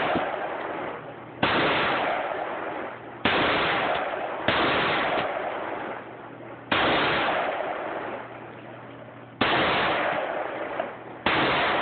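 AR-15-style rifle fired in slow, deliberate single shots, six in all, spaced about one to two and a half seconds apart. Each sharp report is followed by a long echoing decay lasting a second or two.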